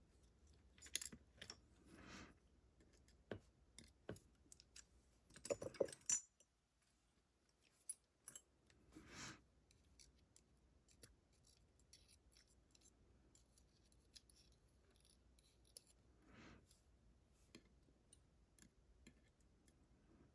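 Small metal lock parts being handled as the pins and springs come out of a pin-tumbler lock's core: faint scattered clicks and taps, with a few soft rustles and a cluster of louder clicks about five to six seconds in.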